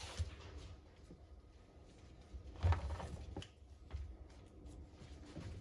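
Rustling with a few short clicks and knocks as a ratchet strap and its hooks are handled, the loudest knock about two and a half seconds in.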